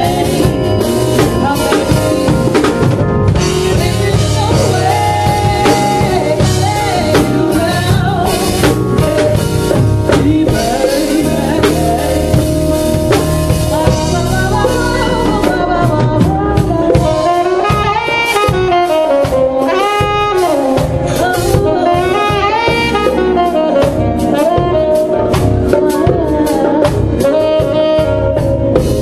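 Live soul/R&B band playing: saxophone, keyboards, bass, drum kit and hand percussion. The drums are busy with cymbals in the first half, then thin out about halfway as the saxophone's sliding melodic phrases come to the front.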